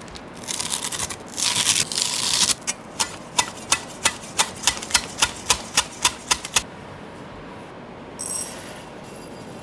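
Cleaver-style knife chopping a sheet of nori on a wooden cutting board: about a dozen quick, even strokes, roughly three a second, after a rustling of the crisp dry seaweed. Near the end, a brief patter of puffed rice grains poured into a ceramic bowl.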